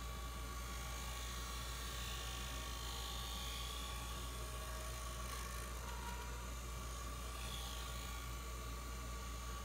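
Small benchtop wood lathe running with a steady motor hum and a thin whine, while a chisel cuts a spinning bloodwood pen blank, the cutting hiss rising and falling a few times as the tool takes shavings.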